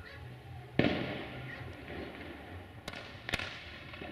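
Fireworks going off: a loud bang about a second in that rings away, then two sharp cracks near the end.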